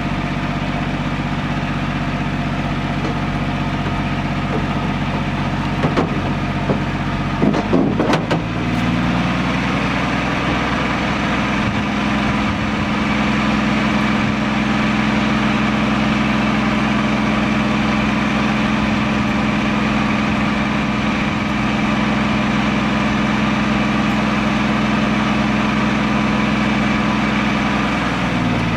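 Lull telehandler's diesel engine running steadily. After a few sharp knocks about eight seconds in, it revs up and holds at the higher speed, then drops back near the end.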